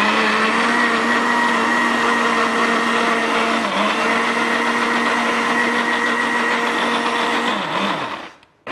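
Countertop blender running steadily as it mixes a thin batter of egg, milk, starch and seasonings; its motor pitch dips briefly twice, then it spins down and stops near the end.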